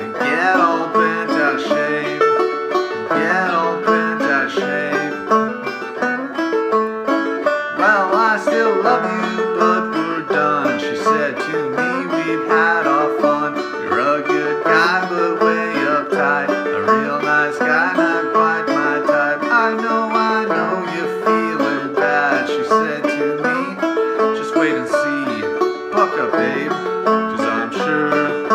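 Gold Tone CC-Carlin 12 open-back five-string banjo played clawhammer style: an instrumental break of an old-time tune, a steady, even run of plucked notes and strums without singing.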